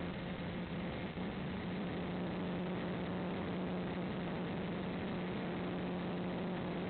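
Steady hum of a model aircraft's motor and propeller in flight, with a constant hiss of wind or radio static over it.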